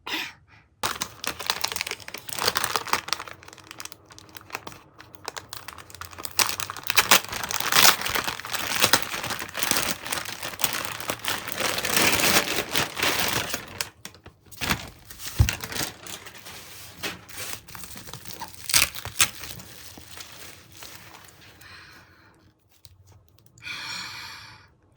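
Album packaging being crinkled and torn open by hand: a long, dense run of rustling and crackling that is loudest in the middle and thins out near the end.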